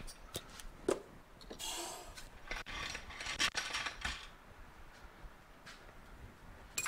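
Small metal engine parts and hand tools being handled on a workbench: scattered clicks and clinks with a few short scraping, rustling sounds, busiest in the middle.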